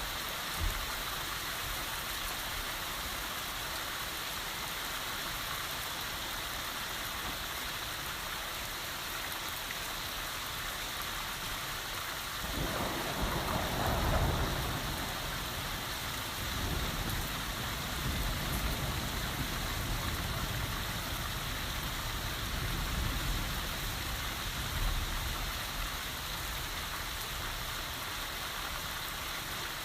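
Heavy rain falling steadily as a constant hiss. About halfway through, a roll of thunder sets in abruptly, swells for a couple of seconds and then rumbles on for roughly ten more seconds before fading back under the rain.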